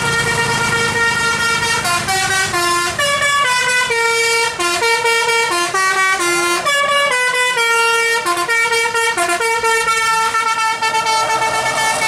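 Multi-tone "telolet" air horn on a coach playing a tune. It holds one note for about two seconds, then runs through a quick melody of changing notes, and ends on a long held note. The bus's engine rumbles low under the opening.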